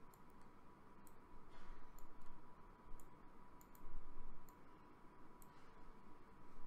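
Faint, sharp clicks at irregular intervals, about one or two a second, over a faint steady high whine.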